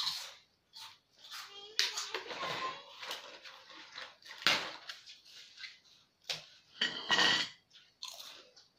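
Crisp grilled rice paper (bánh tráng nướng) crackling and crunching as sheets are broken apart by hand and chewed, in irregular snaps and bursts.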